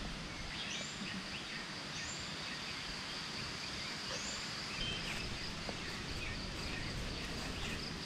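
Rural outdoor ambience: a steady high insect drone, with a few short rising bird calls over it, about three in the first half, and a constant background hiss.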